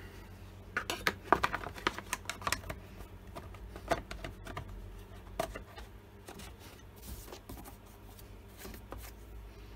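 Plastic top cover of a Stihl MS170 chainsaw being fitted over the air filter and pressed into place: a quick run of plastic clicks and knocks in the first few seconds, then a couple of sharper single clacks and a few lighter taps.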